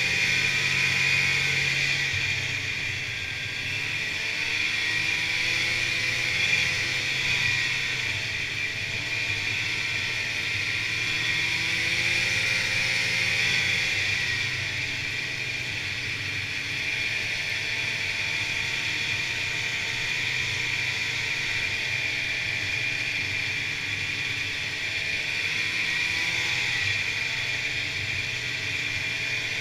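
Snowmobile engine running at trail speed, heard from aboard the sled, its pitch rising and falling gently with the throttle over a steady high hiss.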